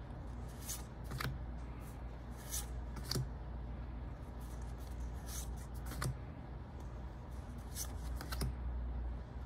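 Pokémon trading cards slid one behind another by hand, each move a short swish, about ten at uneven intervals, over a steady low hum.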